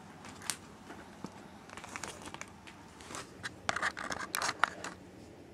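Scattered light clicks and rustles of a camera and its mount being handled and repositioned, busiest about four seconds in.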